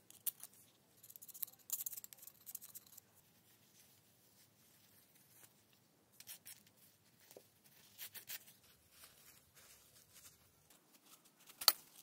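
Faint scattered clicks and scrapes of small metal speedometer parts being worked with a thin screwdriver, with a brief scratchy stretch early on and one sharp click near the end.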